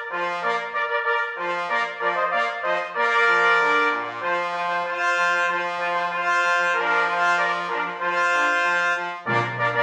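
Brass fanfare music: held chords of several notes, changing about every second.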